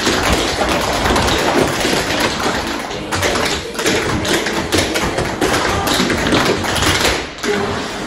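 Tap shoes striking a hard floor in fast, dense rhythms, metal taps clicking with heavier heel and toe thuds mixed in.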